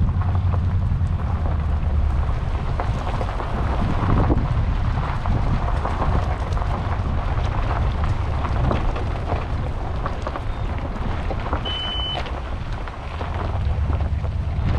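Boat motor running under way, with wind buffeting the microphone and a steady low rumble. A short high beep sounds near the end.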